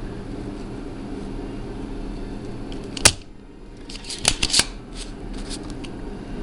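A single sharp click about three seconds in, then a cluster of lighter clicks and handling noise about a second later, over a steady low hum.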